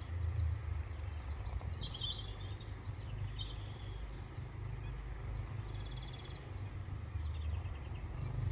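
Outdoor ambience: a few short bird chirps over a steady low rumble.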